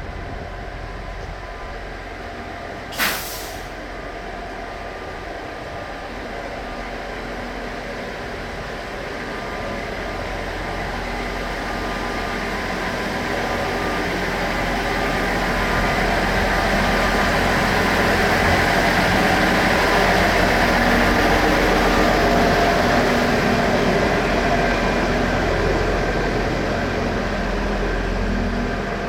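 A short, sharp hiss of air about three seconds in, then a diesel track-inspection railcar, the KiYa E193 'East-iD', running with engine hum and wheel noise that grows steadily louder, peaks about two-thirds of the way through and eases slightly.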